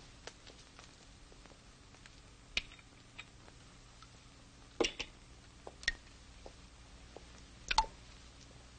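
Quiet room tone broken by a handful of short, sharp clicks and taps spread unevenly, the loudest about five seconds in and again near the end.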